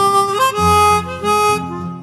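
Background music led by a harmonica playing a melody of held notes over a low accompaniment.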